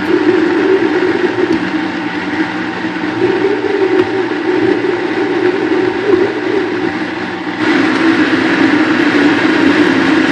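Vitamix blender motor running steadily, blending fruit and water into a thick smoothie. It gets louder and brighter about three-quarters of the way through.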